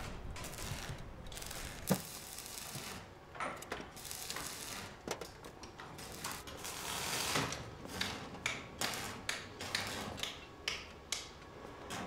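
Metal tools clicking, clanking and ratcheting as a mechanic works on a motorcycle: irregular clicks with a sharper knock about two seconds in and a run of quick clicks near the end.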